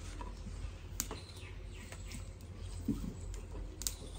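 Hands kneading wheat-flour dough in a bowl: a few soft slaps and knocks against the dough and bowl, spaced about a second apart, over a low steady hum.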